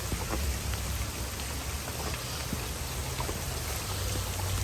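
Steady rain falling, with scattered drops ticking on hard surfaces and a low steady hum underneath.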